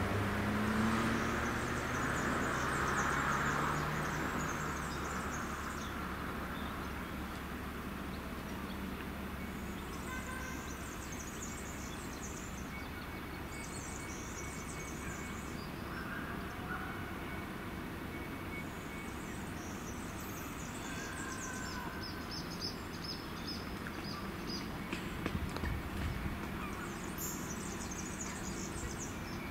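Birds chirping over a steady low background at a closed level crossing, with a vehicle engine fading out at the start. Near the end a low rumble builds: the approaching train.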